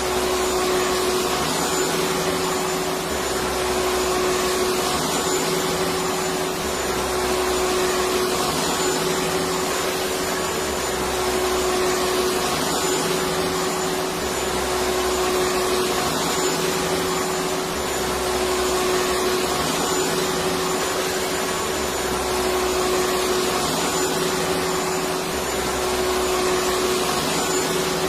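Electric vacuum cleaner running steadily: an even rush of air with a steady motor hum, swelling slightly every few seconds.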